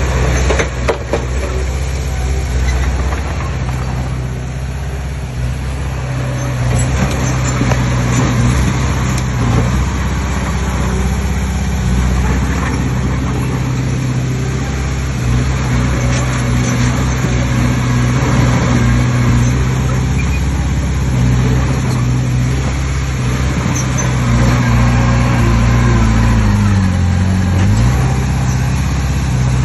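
A heavy earth-moving machine's diesel engine running steadily under work, its pitch dipping briefly and recovering near the end.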